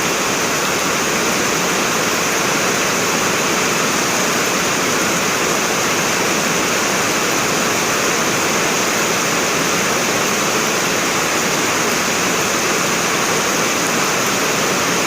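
Heavy rain pouring steadily in a storm, an even, unbroken rush.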